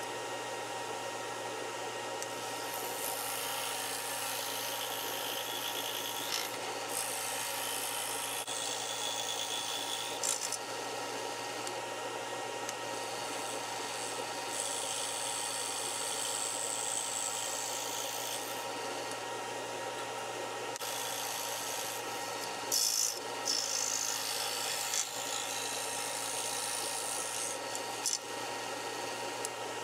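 Scroll saw running with a steady hum while its reciprocating blade cuts through a wooden block. The rasping cutting noise comes and goes in stretches of a few seconds as the piece is pushed into the blade and eased off.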